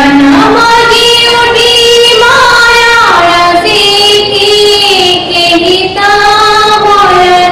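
A woman singing a slow melody into a microphone, holding long notes that slide from one pitch to the next.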